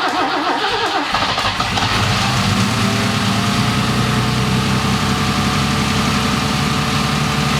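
A BMW E30's engine is cranked on the starter, catches about a second and a half in, and settles into a steady idle. This is a start attempt on an engine that would not run.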